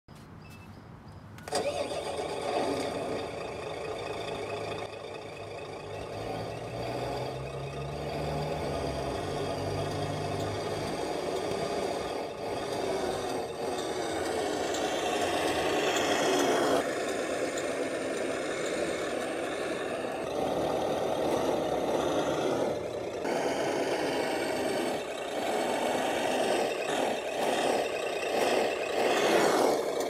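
Truck engine sound from a scale RC dump truck, starting up about a second and a half in and then running steadily, with the pitch rising and falling at times.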